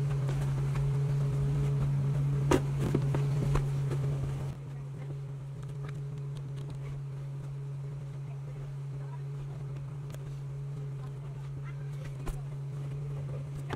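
A few knocks and handling noises as a car's rear seat cushion is lifted and pressed back into place, the loudest about two and a half to three and a half seconds in. A steady low hum runs underneath throughout.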